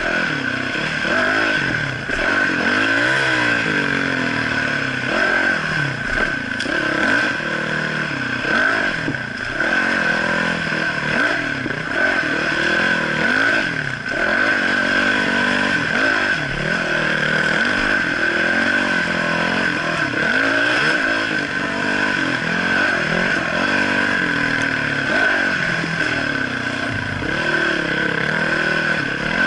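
Dirt bike engine revving up and down over and over as the throttle is opened and closed, with no steady pace for more than a second or two.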